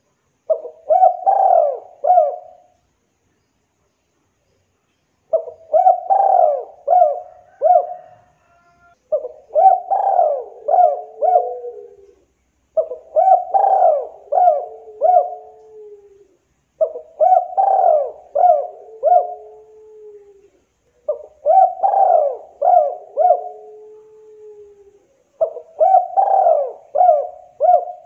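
Spotted dove cooing: seven phrases about four seconds apart, each a quick run of short coos, most ending in a longer, slightly falling low note.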